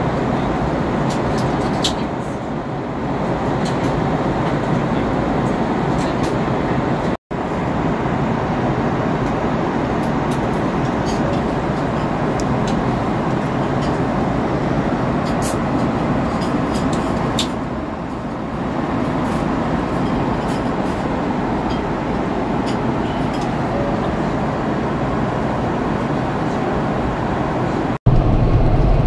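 Airbus A340-300 cabin noise in cruise: a steady rush of engine and airflow noise, with small clicks and clinks now and then. It cuts out briefly twice, about seven seconds in and near the end.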